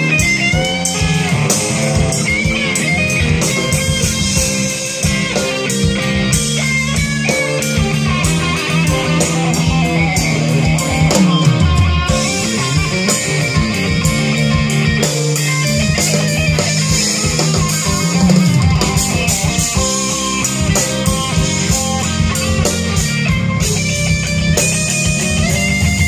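Live blues band playing an instrumental passage without vocals: electric guitar, bass guitar, drum kit and keyboard.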